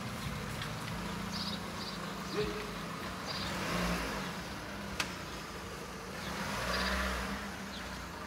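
Car noise: a steady low engine hum, with traffic noise that rises and falls twice. There is one sharp click about five seconds in.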